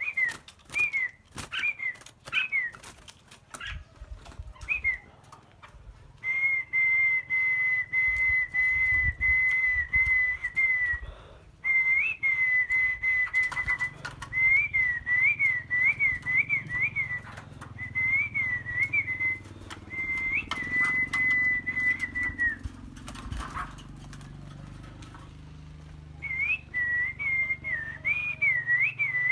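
A songbird singing a clear, high whistled song: short warbled phrases, then long notes held around one pitch with little trills, a pause, and more warbling near the end. Scattered clicks sound in the first few seconds.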